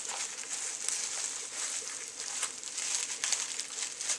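Plastic mailing envelope crinkling and rustling as it is opened by hand, with many small irregular crackles.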